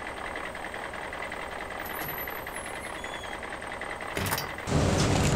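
Pickup truck engine starting: a short burst of cranking, then about four and a half seconds in the engine catches and runs loudly and steadily, over a faint steady background hiss.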